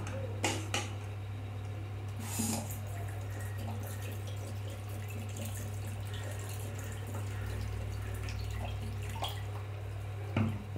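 Sambar simmering in an aluminium pot, with faint bubbling over a steady low hum. A steel ladle knocks against the pot a couple of times near the start and once near the end.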